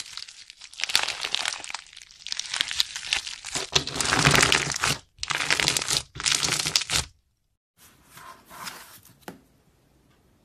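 Crunchy slime being squeezed and pressed, giving dense crackling and popping in several bursts. After a short dead-silent gap about seven seconds in, quieter crackling follows, with a sharp click just before it fades to a faint hiss.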